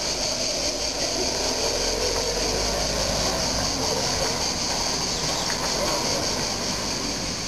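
Crickets chirping in a steady, high-pitched chorus that never breaks, over a low rumble of street background.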